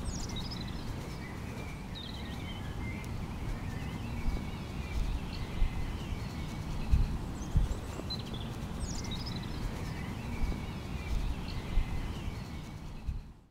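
Outdoor ambience: birds chirping and trilling over a low rumble, with a few dull thumps, fading out at the end.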